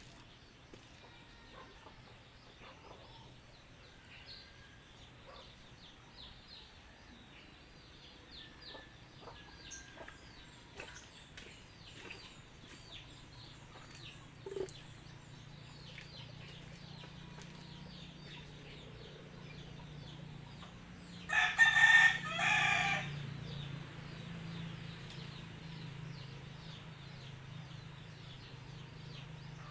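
A rooster crows once, loud and in two parts, about three-quarters of the way through, over faint scattered clicks and a low steady hum.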